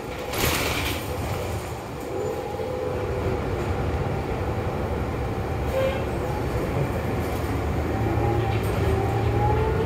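Cabin noise of a New Flyer XD40 diesel city bus underway: a steady low engine and drivetrain rumble, with a short burst of hiss about half a second in and a whine that rises in pitch over the last few seconds as the bus gathers speed.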